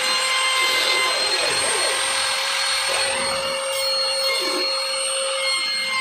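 Compact trim router running at full speed with a steady high whine, routing a recess into the edge of a laminated board.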